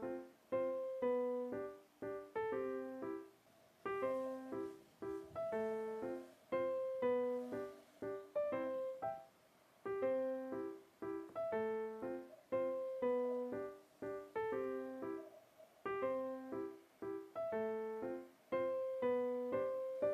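Background keyboard music: a melody of short, separate notes that die away quickly, its phrase recurring every few seconds.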